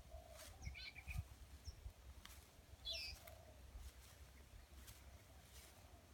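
Birds chirping faintly: two short clusters of high, quick chirps, about half a second in and again about three seconds in, over a low steady rumble.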